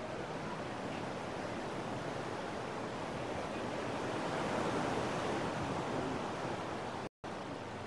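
Ocean surf washing onto a beach, a steady rush that swells to its loudest about halfway through. The audio drops out for a split second near the end.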